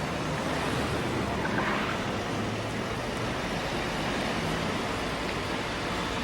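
Steady rushing noise with a low hum underneath, even throughout, with no distinct events.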